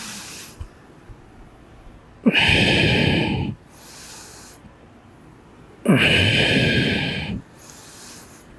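A man's heavy breaths close to a headset microphone: two loud exhalations, each about a second and a half long, a few seconds apart, in time with an effortful side-to-side hip rotation exercise.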